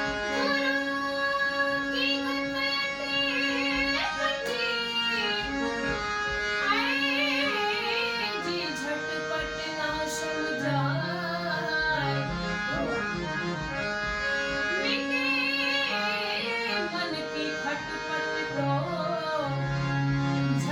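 A woman singing a Gujarati devotional bhajan with ornamented, wavering phrases over held reed-like instrumental notes, with pauses in the voice between phrases.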